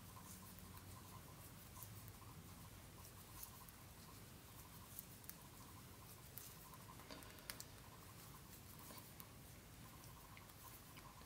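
Faint scattered clicks and scratches of a circular knitting needle and yarn as stitches are knitted, over near-silent room tone with a low hum.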